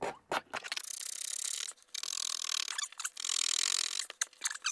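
A snap-off knife blade held flat as a scraper, scraping excess cured gelcoat from a small repair in a fibreglass yacht's cabin side. About three long strokes of a second or so each, then quicker short strokes near the end.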